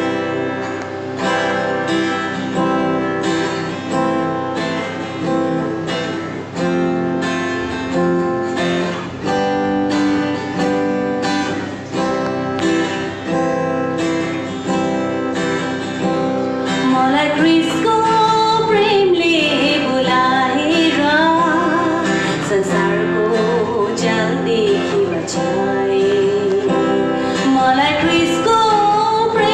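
A worship song on strummed acoustic guitar. The guitar plays alone at first; about halfway through, a woman begins singing over it.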